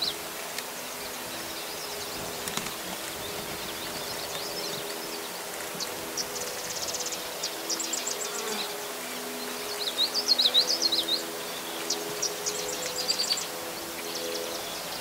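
Marsh ambience: a steady buzz of insects on several overlapping tones, with small birds calling over it in high, rapid trills and chirps. The chirps are loudest about ten seconds in.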